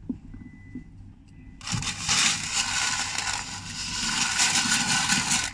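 A loud, steady rustling scrape close to the microphone, starting about a second and a half in and cutting off suddenly near the end.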